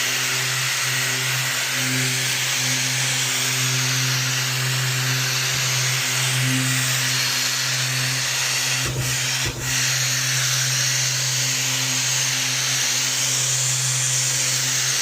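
Electric sanding machine running steadily as it sands dried spackle on a wall, a constant motor hum with a hiss over it that dips twice in quick succession just past halfway.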